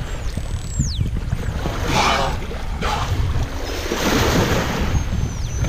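Bow wave of a sailboat under way rushing and splashing against the hull, with wind on the microphone. A few thin, high whistles glide downward in pitch, one about half a second in and another near the end.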